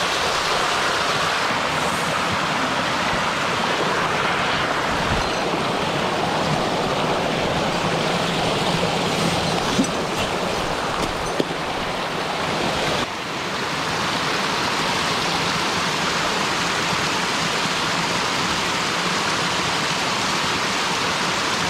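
Stream water rushing and splashing steadily over rock in a small waterfall close to the microphone. The rush changes abruptly about 13 seconds in, and there are a couple of short knocks near the middle.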